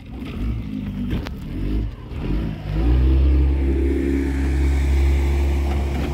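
Motorboat engine running, changing pitch for the first couple of seconds, then settling into a loud steady drone about three seconds in, with water hiss from the hull and wake.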